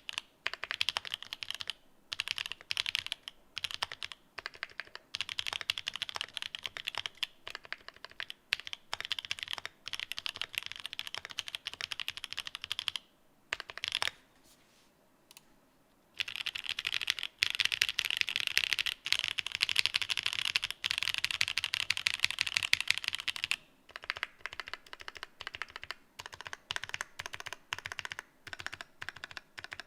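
Mechanical keyboard with Pink Lavender linear switches and Cherry-profile keycaps being typed on continuously, with fast runs of keystrokes. The typing stops for about two seconds about halfway through, then resumes.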